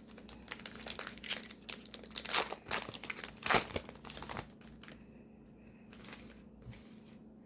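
Foil trading-card pack wrapper being torn open and crinkled by hand, a busy run of crackly rustling for about four and a half seconds that then dies down to a few faint rustles.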